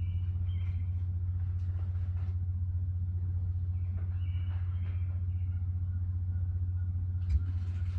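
A steady low rumble, with a few faint high-pitched calls and soft clicks over it, and a brief thump near the end.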